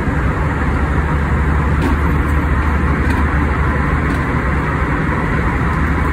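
Steady cabin noise of a jet airliner in flight: the even rush of engines and airflow, with a deep low drone underneath.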